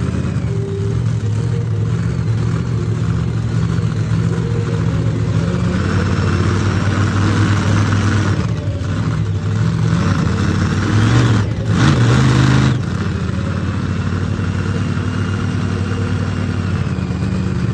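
Monster truck engine running and revving, rising in pitch partway through, then two short, louder revs that cut off sharply.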